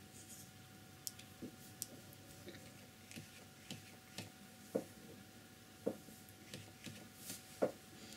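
Faint, irregular light taps and clicks of a flat brush being double-loaded with dark and light blue tempera paint and worked on the palette and a test sheet, about a dozen small ticks.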